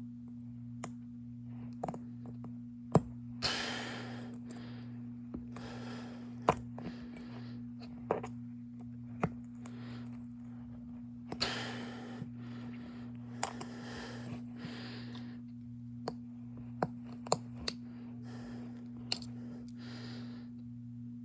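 Irregular sharp clicks and taps of a tool working at a small phone camera module, the part that reads your face, as it is pried at. Several breathy exhalations about a second long come between the clicks, over a steady low hum.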